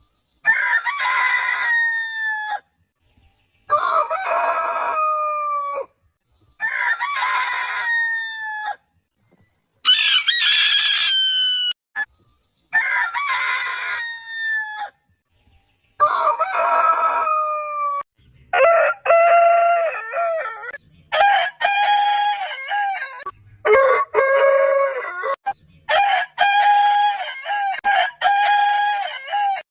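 Roosters crowing one after another: about six long crows, each falling in pitch at the end, with short silences between. From about two-thirds of the way in, a run of shorter crows held at a steadier pitch follows in quick succession.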